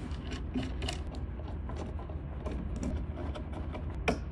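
Small irregular metallic clicks and scraping as terminal screws are tightened down onto the standoffs of a battery module, with one sharper click about four seconds in.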